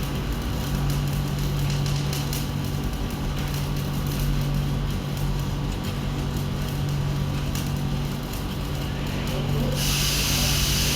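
Welding machine humming steadily, with scattered clicks and scraping. Near the end a loud, steady crackling hiss starts abruptly, typical of a stick-welding arc struck on the pipe.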